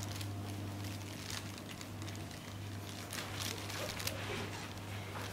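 Thin plastic carrier bag crinkling and rustling in scattered soft bursts as it is pushed about, over a steady low hum.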